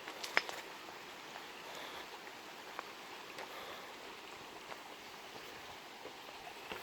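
Steady rush of a flowing stream, with a few sharp clicks, the loudest about half a second in.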